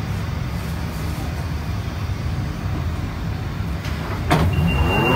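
London Underground Central line train at the platform: a steady low rumble, then a sharp knock about four seconds in and a single high beep lasting about a second, typical of the train's door warning tone.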